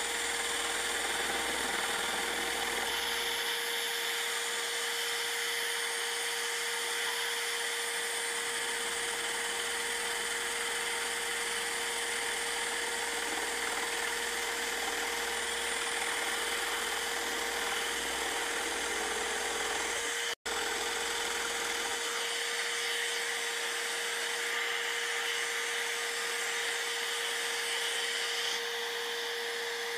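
Scroll saw running steadily with a constant hum, its fine blade cutting a curve through a block of wood. The sound drops out for an instant about two-thirds of the way through.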